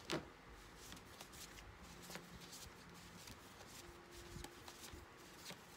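Tarot cards handled and shuffled quietly: a sharp tap just after the start, then faint scattered clicks and rustles of the cards.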